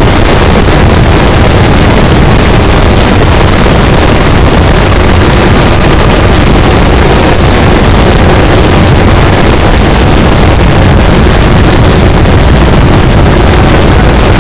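Dense, unbroken barrage of firecracker blasts in a fireworks display, so rapid that they merge into one continuous roar that overloads the microphone.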